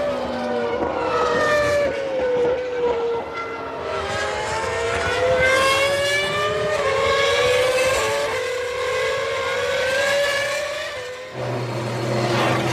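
Several V10 Formula One race cars at high revs, their shrill engine notes overlapping and sliding down then back up in pitch as they brake, shift and accelerate. About eleven seconds in, the sound changes to a lower, steadier engine hum.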